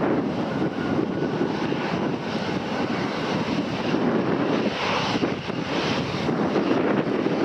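Aircraft engine noise, a steady rushing sound.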